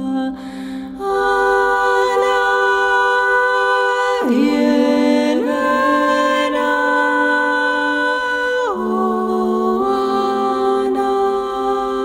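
Slow, calm relaxation music of long held notes that change every few seconds, with a sliding dip in pitch about four seconds in.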